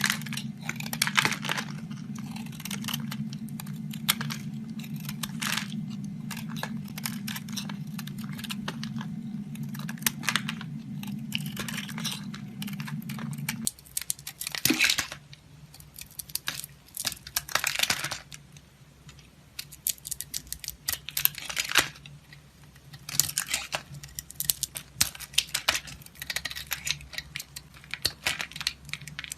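Dry soap crunching and crackling in quick, irregular strokes as it is cut. A steady low hum lies under the first half and stops abruptly about halfway through, after which the crunches come in sparser clusters.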